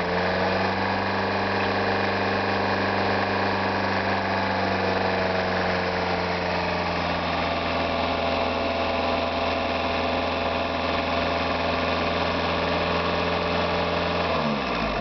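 Car engine running at a steady idle, then winding down and stopping about half a second before the end.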